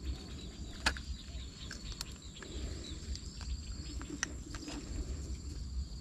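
Outdoor riverside ambience: insects trilling steadily on a high pitch over a low wind rumble, with a few sharp clicks, the loudest about a second in.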